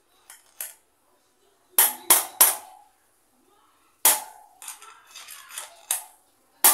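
Hammer blows on a chisel driving a broken rear wheel bearing out of a motorcycle hub: sharp metal strikes with a ringing tone. Three quick blows come about two seconds in, then one at about four seconds followed by lighter taps, and a loud blow at the end.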